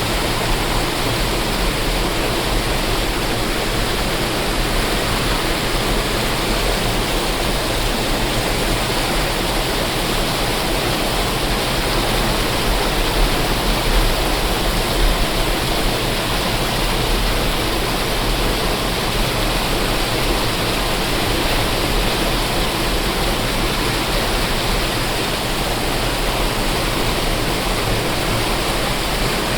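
Waterfall, falling water making a steady, even rush with no breaks.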